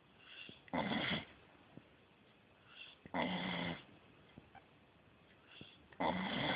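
Sleeping beagle snoring: three loud snores about every two and a half to three seconds, each preceded by a softer breath.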